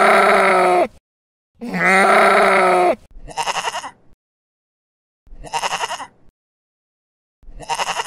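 Sheep bleating: two long, deeper bleats with a trembling waver, then three shorter, higher-pitched, quavering bleats about two seconds apart.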